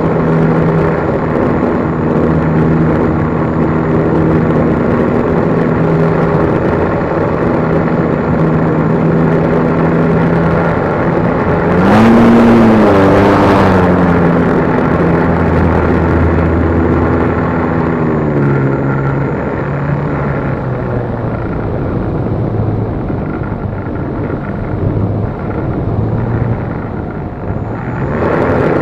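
RC plane's motor and propeller droning steadily in flight, heard from the onboard camera. About twelve seconds in the pitch swoops up and back down under a brief rush of air noise, and it falls to a lower pitch around eighteen seconds as the throttle changes.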